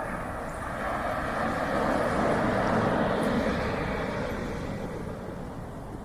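Ocean waves: a wave breaks and washes in, its rushing noise swelling to a peak about halfway through and then easing off.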